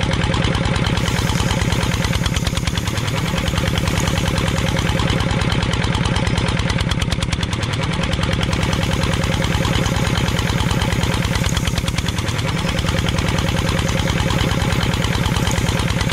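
Single-cylinder diesel engine chugging steadily at idle, a fast even knock that repeats in a loop, as an added engine sound effect would.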